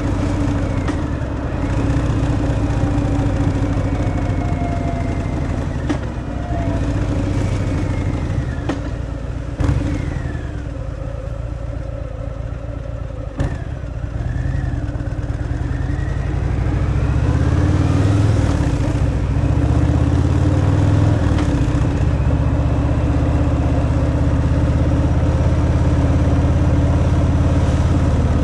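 Harley-Davidson Fat Boy's V-twin running on its stock exhaust while riding. It eases off about a third of the way in, with two sharp clicks, then pulls up again and runs steadily louder through the second half.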